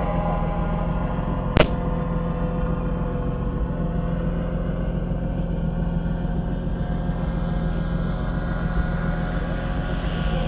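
Jeep Wagoneer's engine running steadily while driving, with one sharp knock about a second and a half in.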